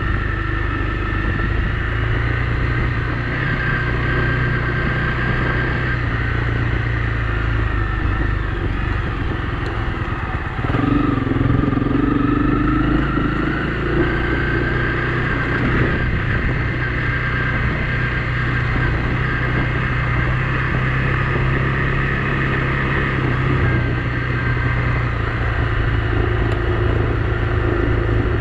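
Honda CRF250 Rally's 250 cc single-cylinder four-stroke engine running steadily as the motorcycle rides along a dirt road. About ten seconds in, the engine note steps up and climbs for a few seconds, then holds.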